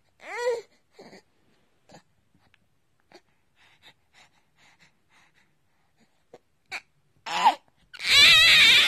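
A baby's voice: a short coo at the start and faint breaths and small sounds, then a loud, excited squealing laugh near the end.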